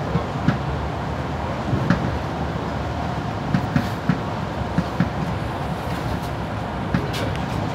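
Ride inside a Mercedes-Benz Citaro O530G articulated city bus on the move: a steady rumble of engine and road, with irregular knocks and rattles from the body.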